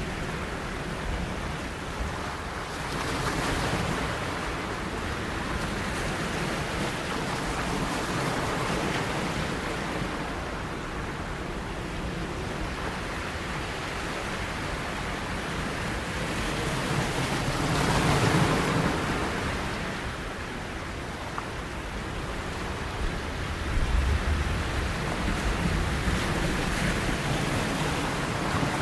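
Sea waves: a continuous rushing of surf that swells louder several times, with the biggest surge about two-thirds of the way through.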